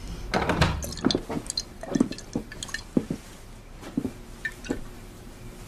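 Footsteps on a wooden floor with rustling of clothing: a string of soft, irregular knocks and taps.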